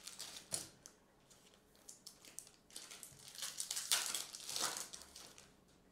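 Foil wrapper of a Topps Chrome trading-card pack crinkling as it is torn and peeled open by hand. Lighter rustles come first, and the crinkling is loudest about four seconds in.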